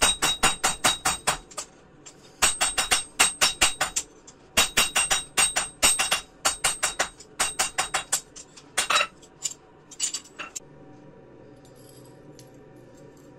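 Hammer blows on steel, fast runs of about five or six ringing strikes a second broken by short pauses, as the gouge blank is forged. The strikes thin out and stop about ten and a half seconds in, leaving a faint steady hum.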